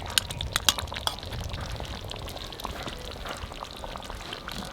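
Chicken and potato curry bubbling in a pot, with a few sharp clicks in the first second.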